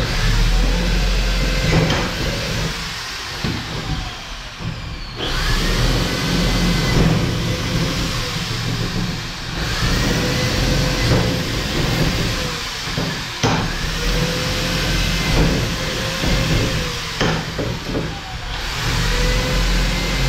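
Electric drill run in repeated bursts of a few seconds, each time whining up to speed and then cutting off, drilling holes through fibre-cement board into the steel-tube wall framing for rivets.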